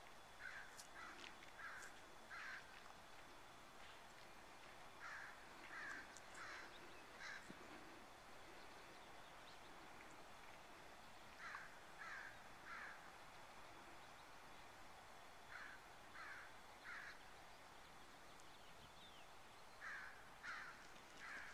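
A bird calling faintly in short runs of three or four calls, repeated every few seconds, over quiet outdoor background.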